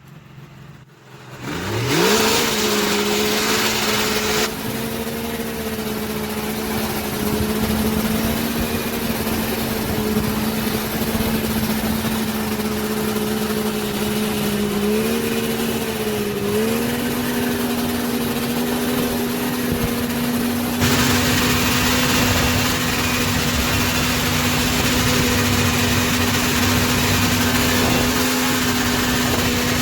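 Snowmobile engine starting and then running at a steady idle, its pitch stepping up slightly about halfway through.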